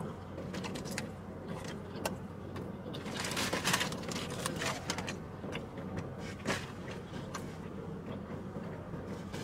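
Paper food wrapping crinkling and rustling as food is picked out of it by hand, densest from about three to four and a half seconds in, with scattered sharp crackles. A steady low hum runs underneath, inside a car.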